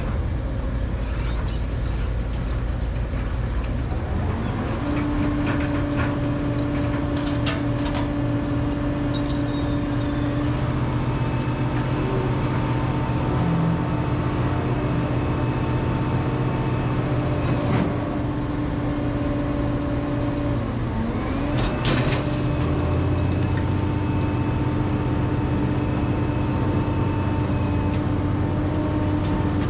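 Liebherr R976 crawler excavator running steadily as it works, with a steady whine that comes in about five seconds in, breaks off with a short glide about two-thirds of the way through, and returns. A few scattered metal clanks.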